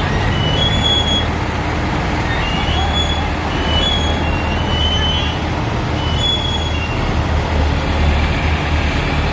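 ACE 14XW pick-and-carry crane's diesel engine running with a steady low rumble, with a few short high chirps over it.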